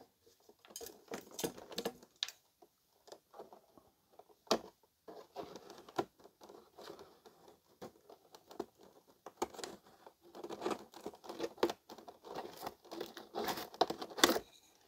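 Clear plastic blister tray crinkling and crackling as it is worked and pulled out of a cardboard action-figure box, in irregular clicks and crackles that grow busiest and loudest near the end.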